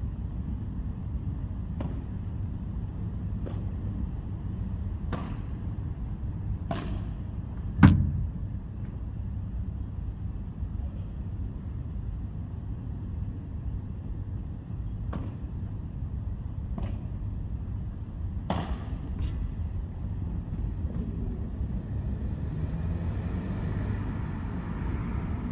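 Padel balls being struck back and forth in a rally, sharp pops about a second and a half apart, in two runs with a pause between them. The loudest is a single heavy thump about eight seconds in. A steady low rumble and a thin steady high whine run underneath.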